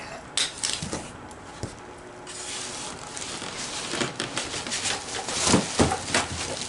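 Plastic wrapping crinkling and rustling as it is handled, with cardboard box flaps rubbing and knocking. A few sharp knocks come first; from about two seconds in the crinkling turns dense and crackly and grows louder toward the end.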